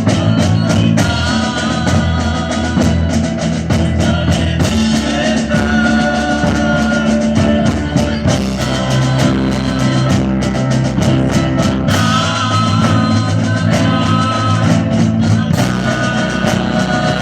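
Rock music playing at a loud, even level: a drum kit beat under sustained melodic lines.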